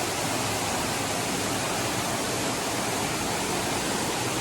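Creek water rushing steadily over rocks in a small cascade.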